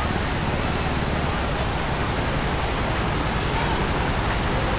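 Steady rushing of river water flowing fast over rocks.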